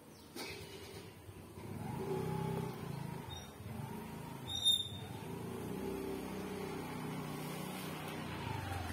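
A motor vehicle engine running, its pitch rising and falling several times, starting a little over a second in. A short high-pitched sound, the loudest moment, comes about halfway.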